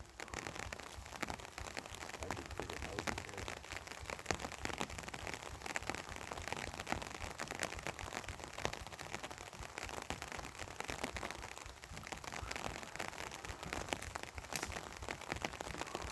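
Dense, steady crackling and popping from the home-made 'redneck fireworks' as they heat up before going off.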